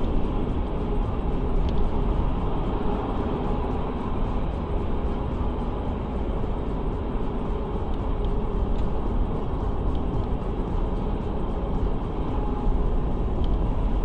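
Steady rumble of road and engine noise from a moving vehicle, heard from inside the cab by a dash-cam microphone, with a few faint ticks.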